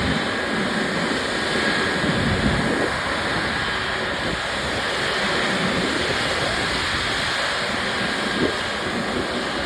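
Steady rushing noise of jet aircraft engines, with wind buffeting the microphone in uneven low gusts.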